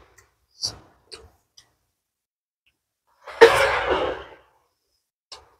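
Eating noises from a man eating rice and salted fish by hand: a few soft mouth clicks and smacks, then about three and a half seconds in one loud breathy mouth sound lasting about a second.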